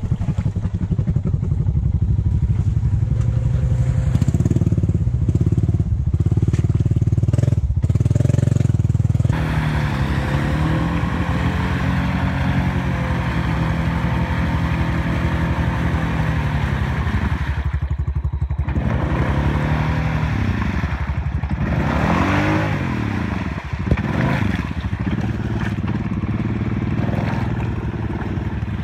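Honda ATV's single-cylinder engine running steadily, then after about nine seconds revving up and down again and again with its tyres spinning in deep mud as the stuck quad is throttled to break free.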